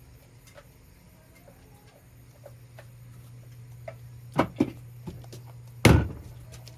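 Scattered light clicks and knocks over a steady low hum, with two sharper clicks about four and a half seconds in and one loud knock shortly before the end.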